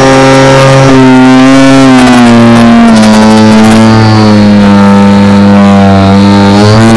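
RC aerobatic plane's motor running at full volume, heard from the camera inside the cockpit. Its pitch drops and rises in steps several times as the throttle changes.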